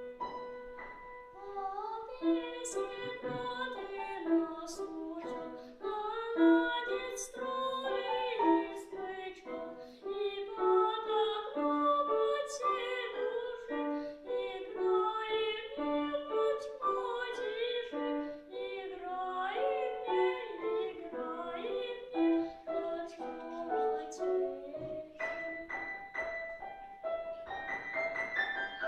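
A young boy singing a children's song with piano accompaniment; the piano plays alone at first and the voice comes in about two seconds in.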